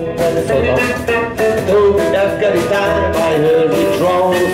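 Live band music with a steady drum beat, about two hits a second, under a moving melodic lead line.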